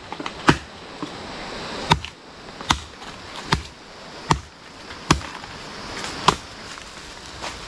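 Blade chopping into the trunk of a dry areca palm: a series of about eight sharp strikes, roughly one every second, as the palm is being cut down.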